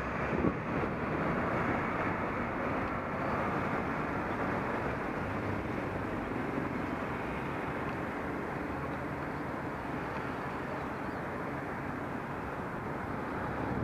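Steady rush of wind over a Contour Roam action camera's microphone on a moving bicycle, over the rumble of tyres and street traffic, with a brief knock about half a second in.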